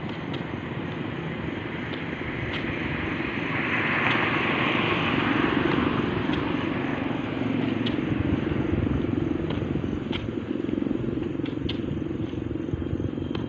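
Steady outdoor rumble that swells for a few seconds around four to six seconds in, with scattered light clicks.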